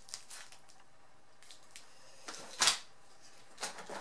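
Handling noise from a cardboard shipping box and packaged polymer clay blocks: a few light clicks and rustles, the loudest a rustle a little past halfway.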